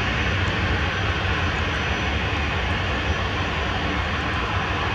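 Steady aircraft engine noise, a constant rumble and hiss, with a faint thin high whine running above it.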